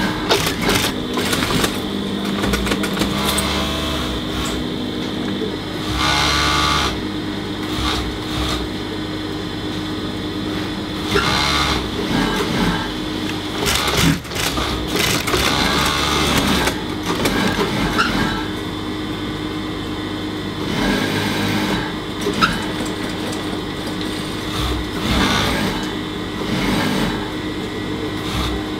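Industrial lockstitch sewing machine stitching a label onto a T-shirt: a steady motor hum, with louder runs of stitching lasting a second or two that come several times.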